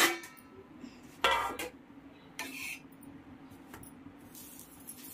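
Metal spatula and utensils clinking against a tawa (flat griddle pan): three sharp metallic clinks, each with a short ring, about a second apart.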